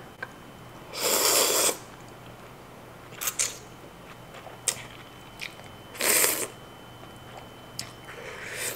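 Person slurping thick udon noodles in a creamy sauce: two long, loud slurps, one about a second in and one about six seconds in. Between them come short wet clicks of chewing and lip smacks, and near the end a shorter slurp of sauce sipped from a wooden spoon.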